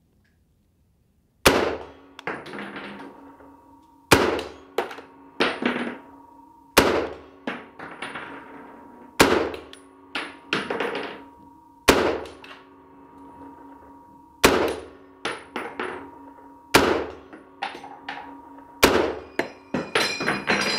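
M1 Garand semi-automatic rifle in .30-06 firing eight slow, evenly spaced shots, about one every two and a half seconds, emptying its eight-round en-bloc clip, with a metallic ringing lingering between shots. Near the end, after the last shot, the empty en-bloc clip is ejected from the action with its ping.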